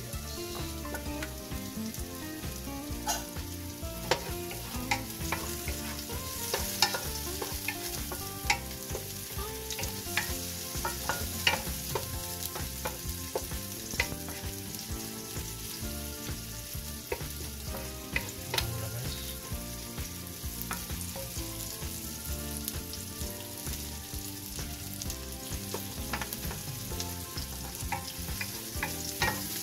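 Chopped garlic and sliced onion sizzling in hot oil in a nonstick pot while being stirred with a wooden spoon, the sauté at the start of a stew. A steady sizzle with scattered sharp knocks of the spoon against the pan.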